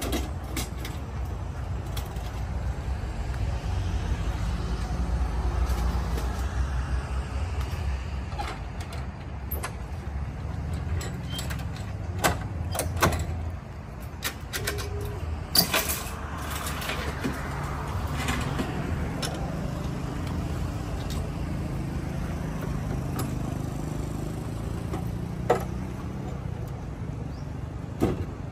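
Scattered clanks and knocks from the metal and wooden fittings of a mini-truck coffee stall being opened up, including a hinged metal step lowered on its chains, with a cluster of louder knocks about halfway through. A steady low rumble runs underneath.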